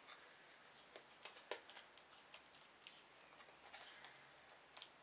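Near silence with a few faint ticks and rustles of a card of faux-suede cord being handled and unwound.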